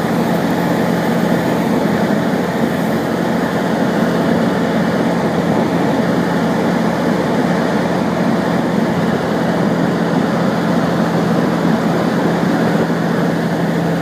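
Engine of a vehicle running steadily, heard from inside its cab as an even drone with a constant low hum.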